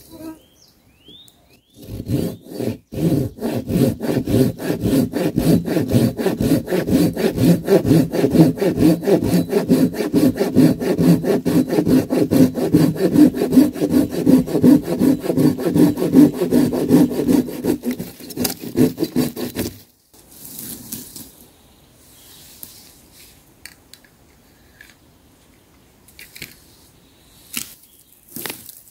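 Silky Gomtaro 270 pull saw cutting through a fallen log in rapid, even back-and-forth strokes for about eighteen seconds, stopping suddenly as the cut goes through. Afterwards a few faint knocks and rustles as the wood is handled.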